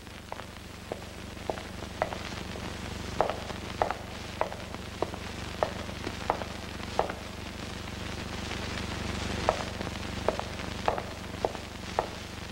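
Cartoon footsteps on a stone cave floor: short, sharp taps at a walking pace of about one every half-second, pausing briefly past the middle, over a steady low hum and hiss.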